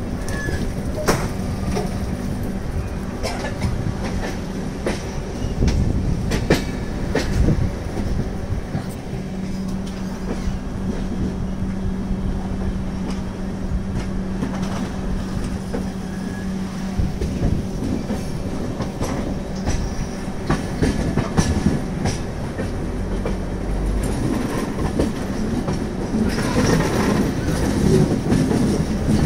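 Indian Railways LHB passenger coach running at speed, heard from its open door: a steady rumble and hum with wheels clicking over rail joints. Near the end it gets louder and busier as the coach runs over points.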